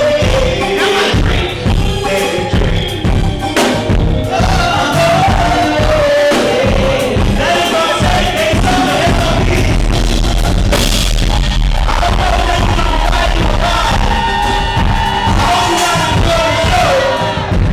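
Live band playing with a vocalist singing over steady bass and drums. The recording is loud and overloaded, its microphone blown out by the club's sound system.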